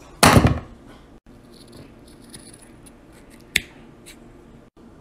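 Scissors cutting through a folded disposable surgical face mask: a loud, brief rustle-like noise just after the start, then faint snipping and scattered clicks, with one sharp snip about three and a half seconds in.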